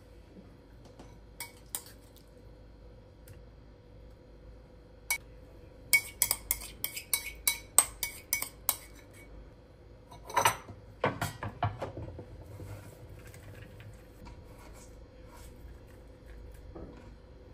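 Dishes and cutlery clinking and being handled: a few single clicks, then a quick run of ringing clinks, followed by a louder scrape and some low knocks about ten seconds in. A faint steady hum sits underneath.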